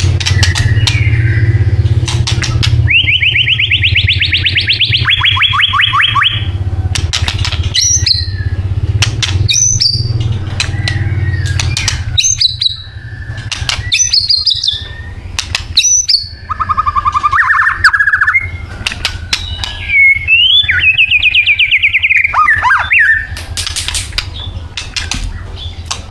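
White-rumped shama (murai batu) singing a varied song of fast rattling trills, clear whistled notes and sharp clicks, with one long trill a few seconds in and another after the middle. A steady low hum runs underneath and fades out about halfway through.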